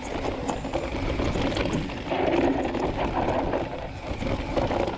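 Rocky Mountain Altitude full-suspension mountain bike riding down a dry dirt singletrack: tyres rolling over dirt with the bike rattling over bumps, and wind buffeting the microphone.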